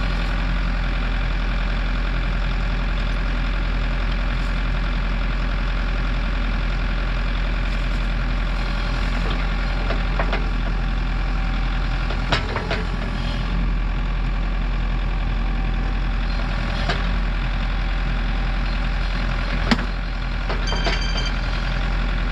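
A piece of heavy equipment's diesel engine idling steadily. A few sharp knocks stand out over it, one about halfway through and one near the end, with a short high-pitched tone just after the last.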